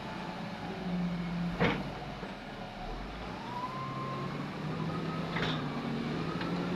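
Heavy diesel machinery running steadily: an excavator at work, its tone rising in the middle, with two sharp metallic clanks, one about a second and a half in and one near the end.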